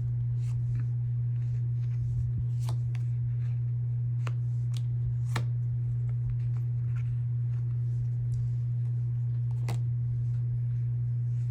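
Tarot cards being handled and laid out on a table: a few light, sharp card snaps spread through, over a steady low hum.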